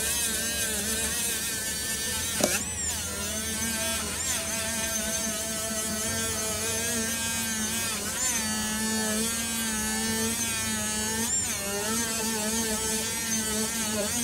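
URAWA handheld micro-motor rotary tool running a buffing wheel against a metal medal, a steady whine whose pitch briefly swoops several times. A sharp click about two and a half seconds in.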